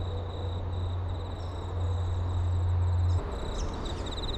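Crickets chirping in repeated pulsed trills, over a steady low rumble that stops about three seconds in.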